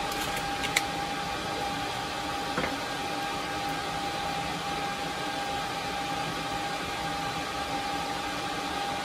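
Steady background hum with a constant high whine, with a few light clicks in the first second and one more a little later from handling the small SPDIF adapter bracket and its plastic packaging.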